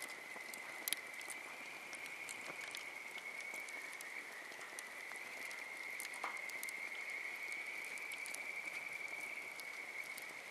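Wood campfire crackling with scattered small pops, a sharper pop about a second in, over a steady high-pitched drone from a background chorus of creatures.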